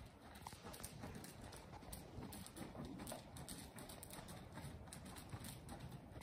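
Faint, steady hoofbeats of a Morgan horse moving around an indoor arena: soft thuds of hooves on deep dirt footing.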